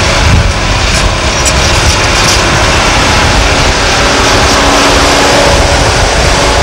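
Liebherr R962 hydraulic excavator's diesel engine running loudly under load as the machine slews and swings its boom and empty bucket, a deep steady rumble with a faint hum over it.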